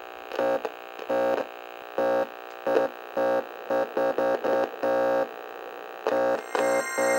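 Electronic outro jingle: a buzzy synthesizer tone that stutters on and off in short, irregular pulses. A brighter, fuller layer comes in near the end.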